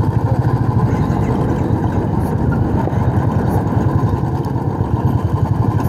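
Single-cylinder motorcycle engine idling with a steady, rhythmic low thump.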